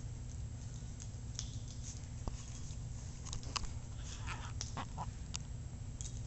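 A dog and a puppy play-wrestling: scattered light clicks and scuffles, with a few short squeaky cries about four to five seconds in, over a steady low hum.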